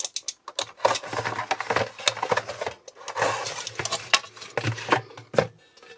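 Small objects and their packaging being handled: irregular rustling with scattered clicks and light knocks.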